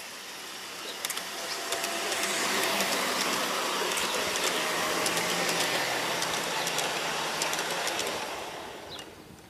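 A large-scale garden-railway model train rolling past on its track: the wheels rush and click over the rail joints, with a faint low motor hum. It builds up about a second in and fades away near the end as the red coaches go by.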